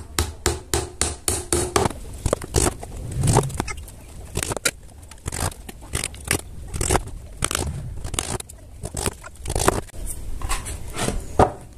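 Hammer driving nails into the plywood panels of a small speaker box: a quick run of taps, about four a second, then slower, irregular strikes.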